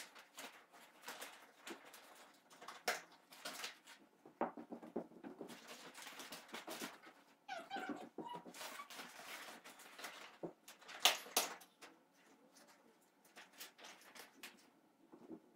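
Large sheets of crinkled paper rustling and crackling irregularly as they are handled, pressed and wrapped around a frame to shape fake rock. A brief squeaky sound comes about eight seconds in.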